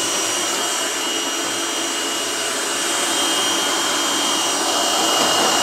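Electric stand mixer running steadily, a motor hum with a thin high whine, whipping chantilly (whipped cream) until it turns firm.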